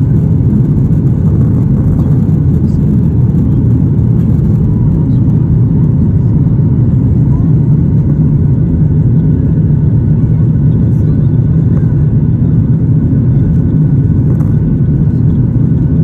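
Steady low rumble of a Boeing 737-800's CFM56-7B jet engines and rushing air, heard inside the passenger cabin as the airliner climbs out after takeoff.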